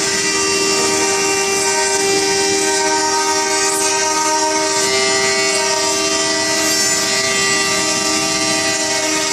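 Three water-cooled spindles of a CNC engraving router running together, a steady whine of several held tones over a noisy hiss of cutting.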